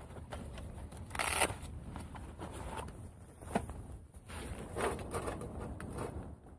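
Rustling, crinkling and light clicks of small camp gear being handled by hand, with the loudest crinkling burst a little over a second in, over a steady low wind rumble on the microphone.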